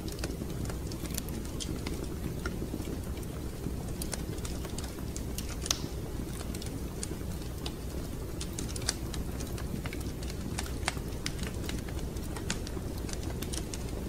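Wood fire in a fireplace crackling: irregular sharp pops and snaps, a few louder than the rest, over a steady low rumble.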